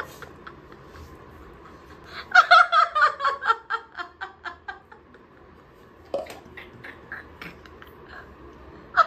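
A person laughing: a run of quick, high-pitched bursts that slide down in pitch, starting about two seconds in, followed by a few shorter, quieter laughs.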